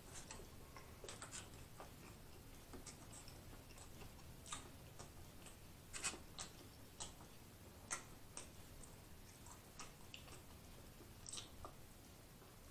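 Close-miked mouth chewing an Italian sausage and beef sandwich: faint, irregular wet clicks and smacks, a few louder than the rest.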